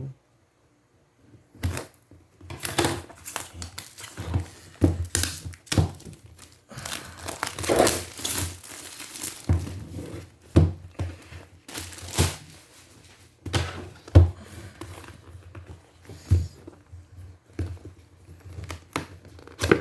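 Product packaging handled by hand: wrapping crinkling and tearing, with scattered knocks and thuds of the box, in irregular bursts after a brief silence at the start.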